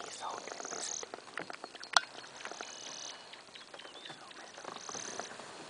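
Hushed whispering from people close by, with small handling clicks and knocks and one sharp click about two seconds in.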